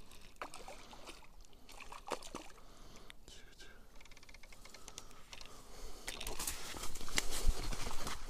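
Spinning reel being cranked, a fine rapid clicking about halfway through. This is followed by louder rustling and scraping of grass and handling from about two-thirds in as a caught roach is landed in the bank grass.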